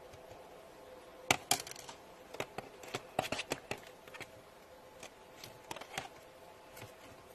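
Slime being squeezed and poked, giving a run of irregular sticky clicks and pops, the loudest about a second in, over a faint steady hum.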